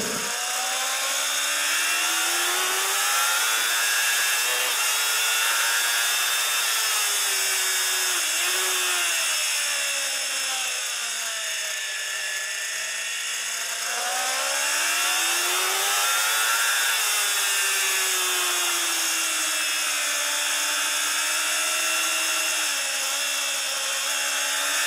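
Onboard sound of a 600cc inline-four supersport race bike's engine, its note rising as it accelerates and falling as it slows for corners, lowest about halfway through. A steady high hiss runs under it.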